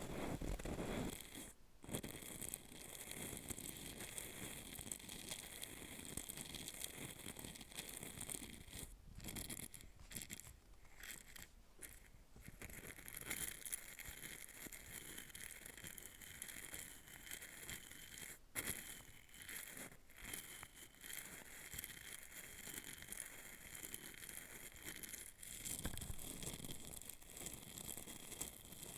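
Close-miked, continuous fine scratching and brushing against a hollow capsule, with a few short pauses in the strokes.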